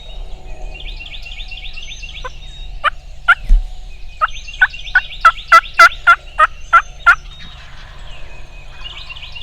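A run of about a dozen turkey yelps, roughly three a second, building louder toward the middle and then stopping. Songbirds chirp steadily in the background.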